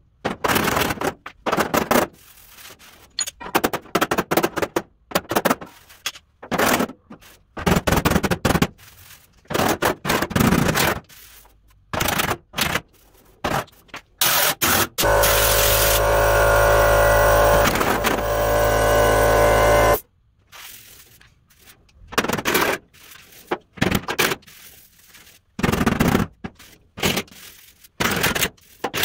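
Body hammer striking the sheet-steel rear fender of a 1953 Chevy truck in quick runs of blows, roughing out the dents. About halfway through, a steady drone runs for about five seconds and stops abruptly, and then the hammering resumes.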